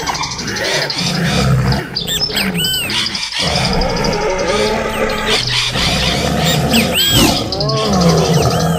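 Sound-effect recording of wild animals: continuous low growling roars with high, arching squealing calls repeated over them.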